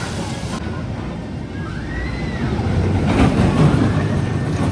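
Steel roller coaster train running along its track, a low rumble that grows louder about three seconds in as the train passes close overhead.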